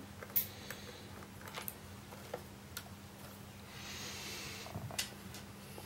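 Faint scattered clicks and taps of a small screwdriver and screws against the hard plastic housing of a toy crane being taken apart, over a steady low hum. A soft hiss lasting about a second comes near the four-second mark.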